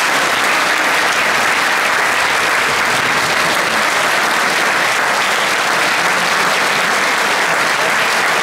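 Large audience applauding steadily in a hall.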